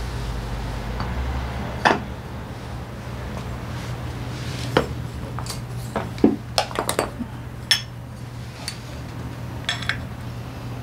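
Metal parts of a Honda PCX 125's driven pulley and clutch assembly being handled and set down, giving scattered clinks and knocks with a quick run of them a little past the middle, over a steady low hum.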